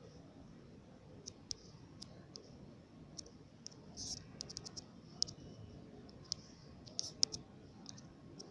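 Light, sharp taps on a smartphone touchscreen, a dozen or so scattered, with a quick run of them about four seconds in, over faint room hiss.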